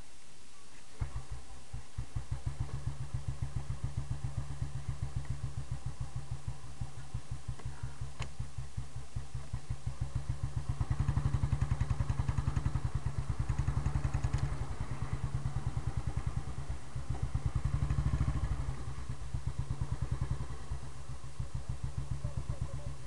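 Royal Enfield Bullet single-cylinder engine starting about a second in, then idling with an even, low thump. It is revved up twice, once around the middle and once more a little later.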